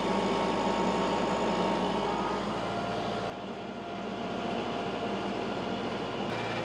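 Tractor engine running steadily while its loader holds the log, the sound dropping somewhat about a third of the way in.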